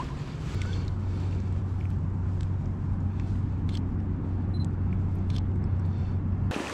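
A steady low rumble with a constant low hum that sets in about half a second in, cutting off abruptly near the end.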